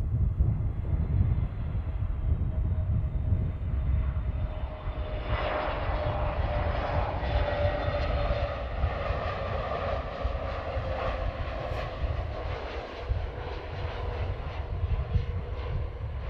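British Airways Airbus A320neo on final approach, its twin turbofan engines running over a steady low rumble. About five seconds in the engine noise grows fuller, with whining tones that slowly sink in pitch.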